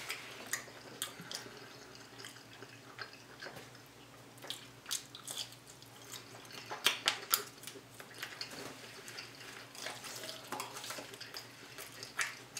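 Close-miked wet mouth sounds of a person chewing noodles and smoked sausage: scattered smacks and clicks, loudest in a cluster about seven seconds in.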